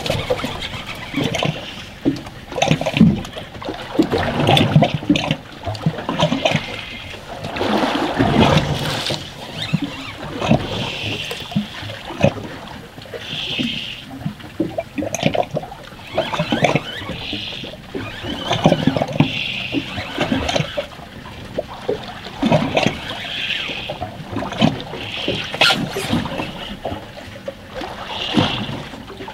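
Seawater slapping and splashing against a drifting boat's hull in irregular surges every second or two.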